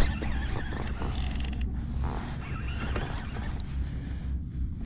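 Baitcasting reel being cranked as a hooked bass is reeled in, over a steady low rumble of wind on the microphone.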